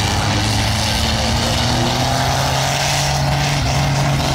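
Off-road vehicle engine running loud and steady, its pitch slowly climbing.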